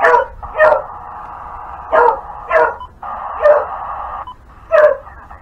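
A dog barking six times, mostly in quick pairs, over a steady hiss of radio static from a receiver that cuts in and out.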